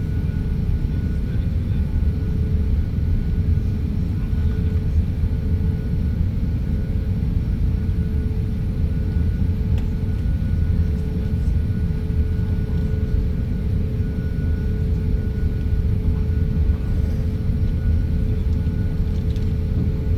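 Airliner cabin noise: a steady low rumble of engines and airflow with a constant hum over it, unchanging throughout.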